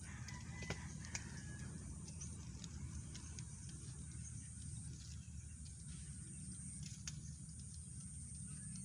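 Faint outdoor ambience: a steady high insect buzz that pauses every couple of seconds over a low rumble, with scattered light clicks and a brief bird chirp about a second in.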